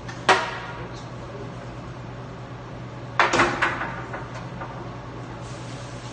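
Long wooden bagel boards knocking and clattering as they are handled: one sharp knock a fraction of a second in, then a quick cluster of knocks about three seconds in. A steady low hum runs underneath.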